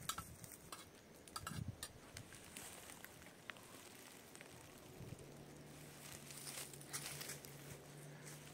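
Quiet outdoor ambience with scattered light clicks of a spoon against a metal plate. A faint steady low hum sets in about halfway through.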